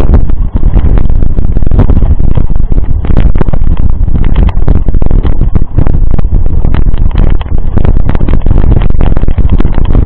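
Loud, distorted rumble of wind and handling noise on an action camera's microphone, with irregular crunches of footsteps on railway-ballast gravel.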